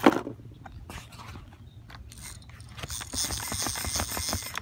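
Rummaging in a backpack: a sharp knock at the start, scattered small clicks and rustling, then a rasping run of rapid clicks for about a second and a half near the end.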